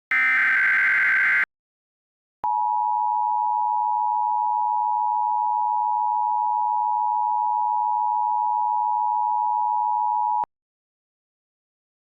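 Emergency Alert System signal: a loud burst of SAME digital header data for about a second and a half, a second's pause, then the two-tone attention signal held steady for about eight seconds before it cuts off.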